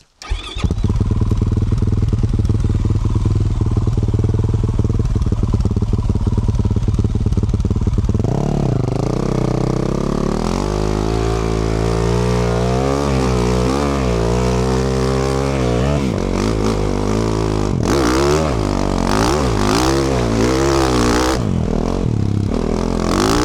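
Dirt bike engine running steadily, then from about eight seconds in revving up and down over and over as the bike rides. Around eighteen to twenty-one seconds in, a stretch of rough noise rides over the engine.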